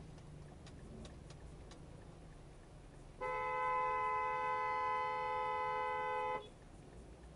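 A long vehicle horn blast of about three seconds, two horn tones sounding together as one steady chord, starting about three seconds in and cutting off abruptly. A low rumble continues underneath.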